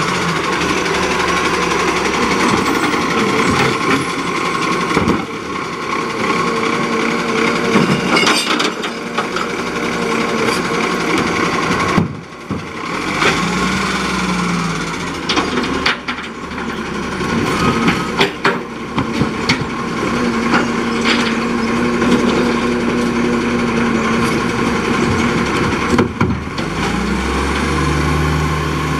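2007 Acco side-loading garbage truck collecting wheelie bins: its diesel engine runs throughout, rising to a steady higher pitch for a few seconds at a time. Irregular knocks and bangs come from the bins being lifted, tipped and set back down.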